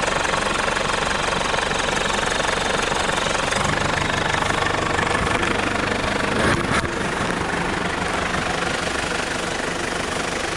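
Off-road 4x4's engine idling steadily, with a brief bump about six and a half seconds in.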